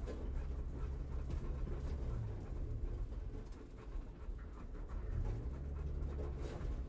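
Flat-four boxer engine of a modified Scion FR-S/Subaru BRZ-platform track car, with an aftermarket header and single-exit catback, idling in neutral while the car coasts at walking pace; a steady low rumble heard from inside the cabin.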